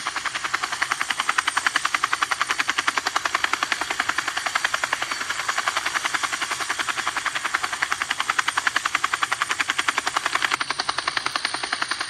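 Toy helicopter with its rotors spinning, giving a fast, even chopping clatter.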